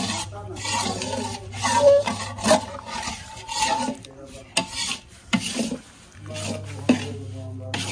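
A metal stirrer scraping and rubbing against the inside of an iron kadai in repeated strokes. It is working coarse wheat flour roasting in ghee for panjeeri, kept moving so it does not stick to the bottom.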